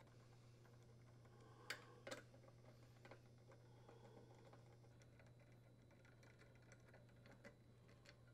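Faint clicking and ticking as screws are unthreaded with a screwdriver from a dryer door's metal hinge assembly, with two sharper clicks about two seconds in, over a low steady hum.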